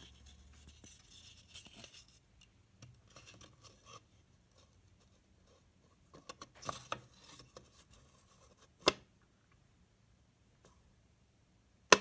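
Wooden end cap of a scale-model tank being handled against the tank's rim: light scraping and rubbing of wood on wood, a flurry of taps and scrapes about halfway through, then two sharp clicks, the second the loudest, near the end, as the magnet-held cap snaps into place.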